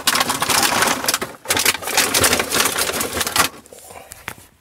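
Product packaging being opened and handled: a dense crackling crinkle that eases off about three and a half seconds in.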